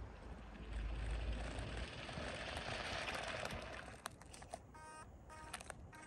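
Remote-control car driving up on wet asphalt, a steady hiss of its motor and tyres that is loudest a few seconds in. From about four and a half seconds, short repeated pitched tones come in.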